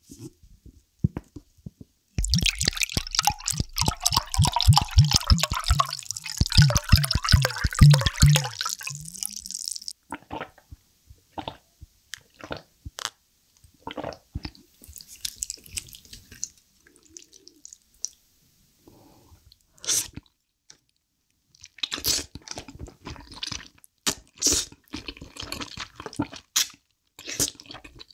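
Makgeolli glugging out of the bottle neck as a glass is poured, a quick even run of glugs lasting about eight seconds. Sipping and swallowing follow, and near the end there are slurps and chewing of spicy chicken-feet soup and glass noodles.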